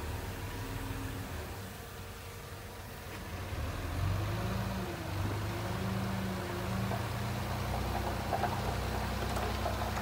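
Dump truck engine running, revving up about four seconds in and holding higher as the hydraulic hoist raises the tipping bed. Near the end there is a light clatter of rocky soil beginning to slide out of the tilted bed.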